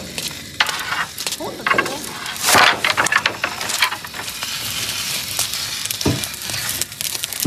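Crackling and sizzling with many short clicks and a few louder pops, from a wood fire burning in a cooking stove under a large wok.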